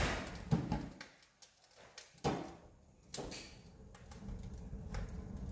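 Wood-burning fireplace's firebox door being opened and closed: about four clunks and scrapes spread over the first three and a half seconds, followed by a steady low rumble.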